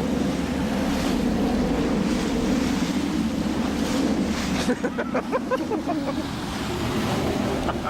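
Wind buffeting the microphone and water rushing past on a boat underway, over a steady low hum. About five seconds in, a brief high, wavering sound.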